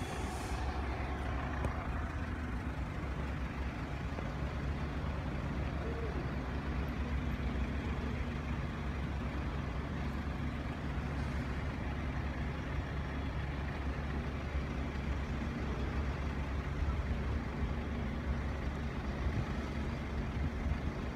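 Steady low hum of a large vehicle's diesel engine idling, with no change in pitch.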